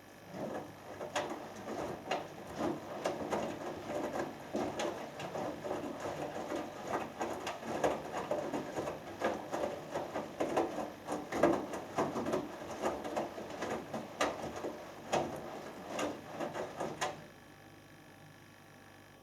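Hoover Dynamic Next DXA610IW3 front-loading washing machine in its main wash: the drum turns and tumbles wet laundry with irregular sloshing, patter and small knocks. The drum stops abruptly near the end, leaving a faint steady hum.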